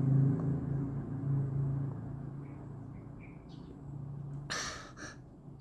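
KDK K15V0 ceiling fan's motor humming steadily, the hum growing fainter, with a few faint high chirps and a short rustling noise about four and a half seconds in.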